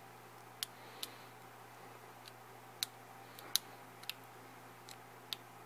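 Small, sharp metallic clicks of a hook pick working the pins of a brass pin-tumbler deadbolt cylinder under tension, about eight at irregular intervals.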